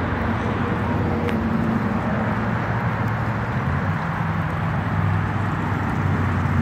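Steady road-traffic rumble: a continuous wash of tyre and engine noise with a low engine hum underneath.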